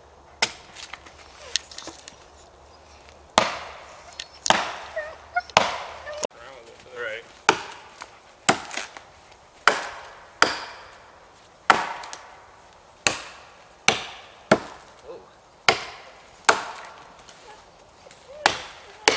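Axe chopping into the trunk of a standing ironwood tree: sharp blows about once a second, beginning a few seconds in.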